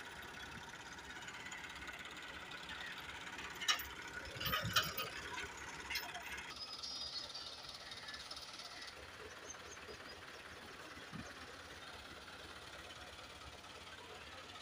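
Farm tractor diesel engines running faintly, with a few sharp knocks about four to five seconds in.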